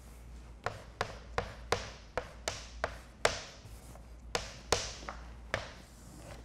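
Chalk writing on a chalkboard: about a dozen sharp taps and short scratches as the chalk strikes and strokes the board.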